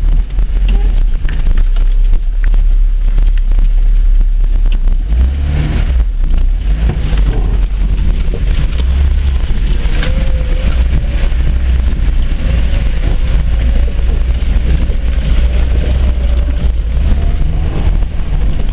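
Lada Niva driving on a rough track, its engine running with a heavy, steady low rumble and a faint wavering whine about halfway through. Wind or buffeting noise on the microphone runs under it.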